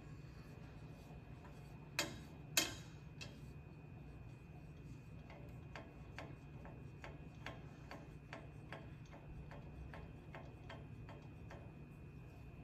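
Thin metal rods clinking against the rim of a steel pot of dye as knife scales are held and moved in it: two sharper clinks about two seconds in, then light, even ticks at about three a second through the middle and latter part.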